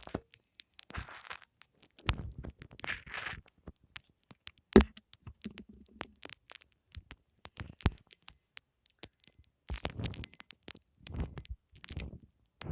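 Foam being handled and crunched in short, irregular crackling bursts, with a couple of sharp clicks partway through.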